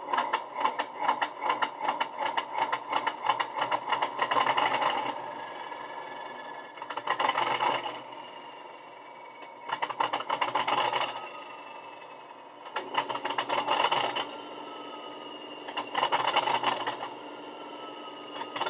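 Recorded Class 37 English Electric diesel engine sound from a model locomotive's sound decoder, played through a small speaker. Fast even pulses for about five seconds, then a steady running note with a louder surge about every three seconds and faint falling whistles.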